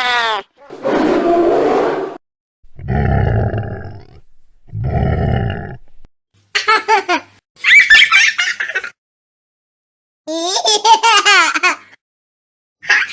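A child laughing in two bouts of quick, choppy giggles, starting a little under halfway through, with a silent pause between the bouts. Before the laughter come a few low, rough rumbling blasts.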